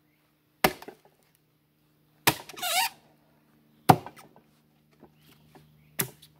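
Sledgehammer striking a steel splitting wedge driven into a round of sycamore: four sharp blows about a second and a half apart. The wedge is hung up in the stringy, interlocked sycamore grain, which will not let the round split.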